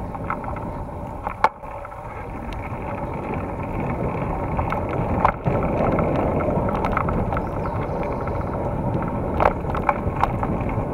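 Mountain bike riding fast down a dirt forest trail: a steady rumble of tyres and wind on the camera, with the bike rattling and several sharp knocks over bumps. It grows louder over the first few seconds as the bike picks up speed.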